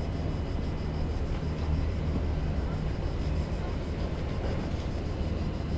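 Steady low engine rumble with a constant hum, as of a large engine running at idle.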